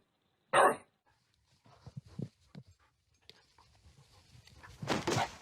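A dog barks once, sharply, about half a second in, followed by softer irregular noises and a louder rustling stretch near the end.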